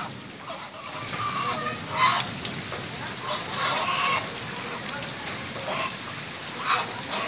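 Steady rain falling on a puddle and wet ground, with a small flock of domestic geese giving short calls every second or so as they wade through the water.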